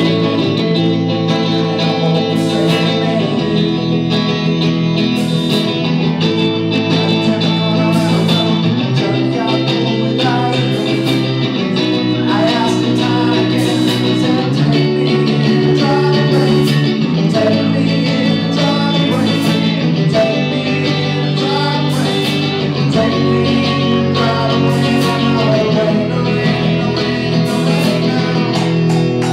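Guitar-led rock music playing at a steady level.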